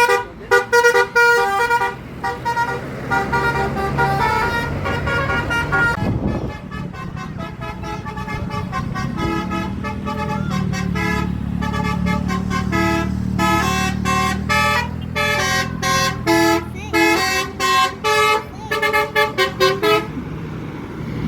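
Indonesian bus 'telolet' multi-tone horn playing a quick tune of short honked notes, with one chord held for about four seconds near the start. A bus engine runs underneath, louder from about six seconds in.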